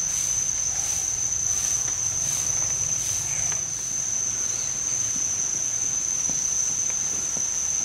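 Tropical forest insects: a steady high-pitched drone, with a pulsing rasp about every 0.7 s that fades out about three seconds in.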